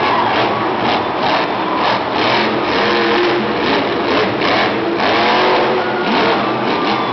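Monster truck engine revving hard in repeated surges, its pitch climbing and dropping again and again while the truck jumps and lands.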